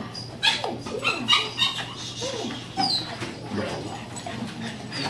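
A dog whining, with a few short high yelps and whimpers that rise and fall in pitch.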